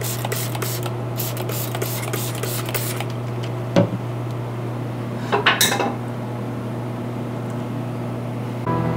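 A hand trigger spray bottle squirted rapidly, a dozen or so quick hissing sprays over the first three seconds. A sharp knock comes about four seconds in and a short cluster of knocks around five and a half seconds, over a steady low hum.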